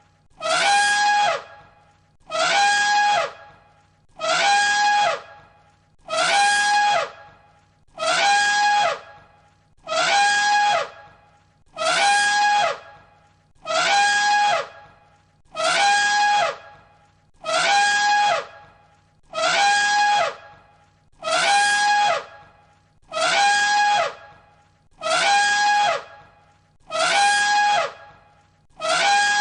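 An elephant trumpeting, the same call repeated over and over about every two seconds. Each call is a loud, brassy held note, roughly a second long, that drops in pitch as it ends.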